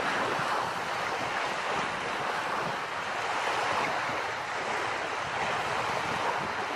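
Steady wash of small waves on a sea shore, mixed with wind blowing over the microphone.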